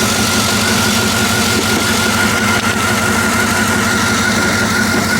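Pickup truck's V8 engine idling steadily, with a thin wavering whine over the hum. The owner says it is idling rough and it shows a P0300 random-misfire code, which he believes is down to worn spark plugs.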